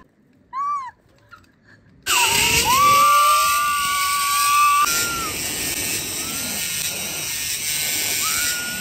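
Zipline trolley pulleys rolling fast along the steel cable, giving a thin steady whine over a loud rushing noise that starts about two seconds in. The whine breaks off, then comes back briefly near the end. A short high chirp sounds about half a second in.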